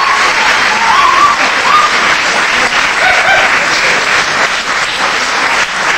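Audience applauding steadily, with a few short shouted cheers over the clapping.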